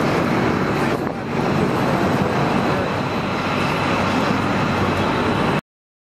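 Steady, rumbling outdoor noise with no words or distinct events, heaviest in the low end. It cuts off abruptly to dead silence about five and a half seconds in.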